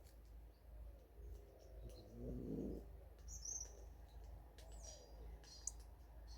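Faint bird calls, with a few short high chirps around the middle and later, and a brief louder low rustle about two seconds in.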